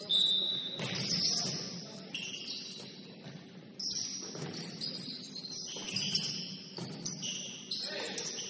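Basketball sneakers squeaking on a gym floor: many short, high squeaks at different pitches overlapping one another, with a few sharp thuds among them.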